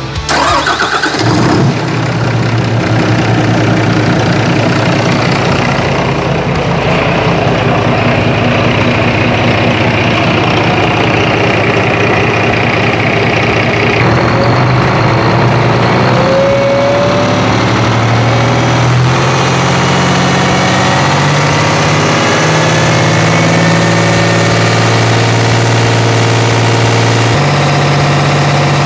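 FPT Cursor 9 marine diesel, an 8.7 L in-line six, starting in the first second or two and then idling at about 600 rpm, on a test run with no boat around it. Its pitch steps up slightly a few times in the second half.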